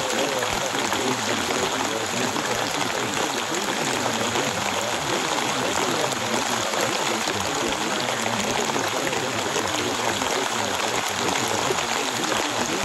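Steady, even rain noise.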